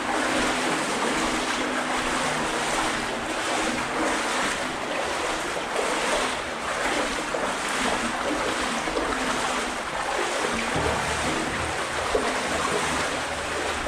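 Steady rush of water in a brick culvert tunnel, with a faint low hum joining near the end.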